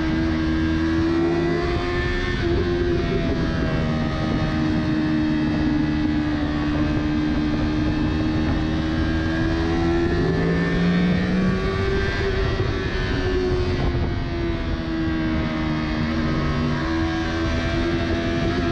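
A Yamaha R3's parallel-twin engine pulling steadily at high revs from the rider's seat, with wind noise. Its pitch holds fairly even, rises a little past halfway, then settles back.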